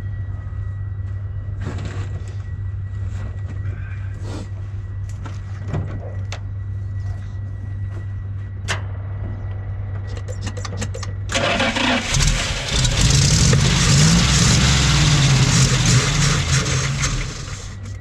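Carbureted Dodge Ram pickup engine cranked, catching about eleven seconds in and running roughly for some five seconds before it dies. It fires but loses spark once off the cranking position, which the owner suspects is a failed ballast resistor.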